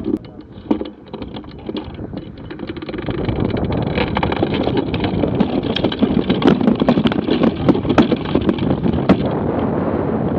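Wind rushing over the microphone, building from about three seconds in as a hang glider's wheeled launch trolley speeds up on its grass takeoff run, with the trolley rattling and knocking over the bumpy ground.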